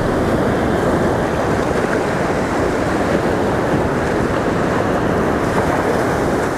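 Sea surf breaking and washing up a sandy beach: a steady, even rushing, with wind buffeting the microphone.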